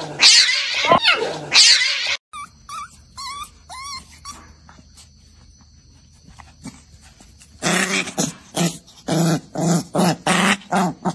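Opens with a loud, high-pitched cry, then a dog whimpering faintly. Over the last few seconds the dog makes short growling grunts in a steady rhythm, about two a second, while it is rubbed.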